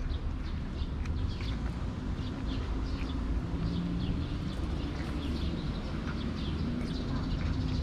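Small birds chirping in quick, scattered short calls over a steady low background rumble.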